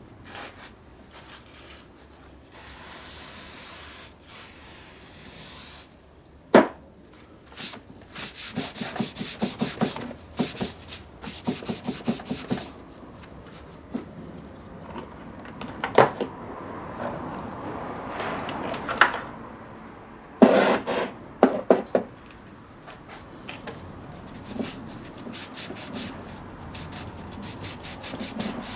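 Rust being rubbed off metal lathe parts by hand, in runs of quick back-and-forth scrubbing strokes, with a few sharp knocks of the parts or tool and a few seconds of hiss about three seconds in.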